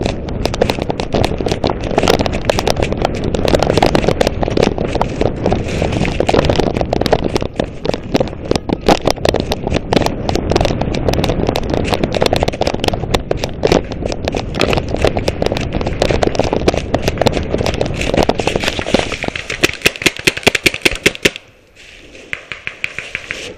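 Running footsteps crunching fast through thick dry leaf litter, a continuous crackling. It ends abruptly about 21 seconds in after a run of louder, sharper crackles.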